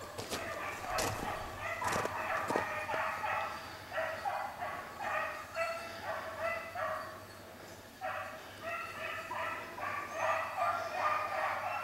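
A pack of beagles baying on a rabbit's trail, several hounds crying at once in repeated, overlapping calls. The baying thins out about two-thirds of the way through and picks back up near the end. A few sharp clicks fall in the first couple of seconds.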